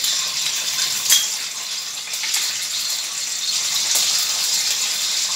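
Hot oil sizzling steadily in a kadhai with cumin seeds and ginger paste just added, with a few light clicks of a utensil against the pan.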